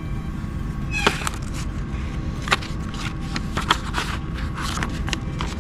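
A paper instruction sheet crackling and rustling in short sharp bursts as it is handled and laid down, over a steady low hum.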